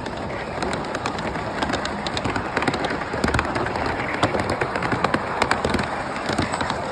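Large-scale model freight cars rolling past on brass track, their metal wheels clicking and rattling irregularly over the rail joints, several sharp clicks a second over a steady rumble.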